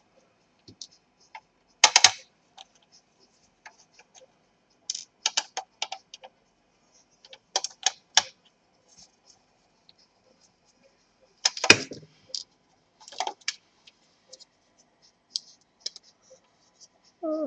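Irregular clicks and scrapes of a laptop's cooler, an aluminium heatsink with copper heat pipes and a fan housing, being handled and pried apart by hand. The loudest clatters come about 2 seconds in and again around 12 seconds in.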